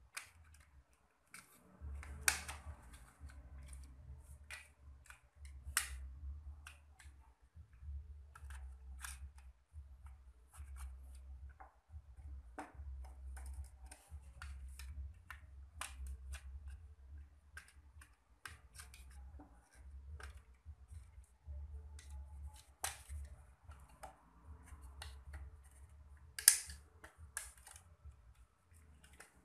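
Plastic clips and seam of a TV remote's two-piece case clicking and snapping as a screwdriver pries the case apart. The clicks are irregular and many, with a few sharper snaps, the loudest near the end.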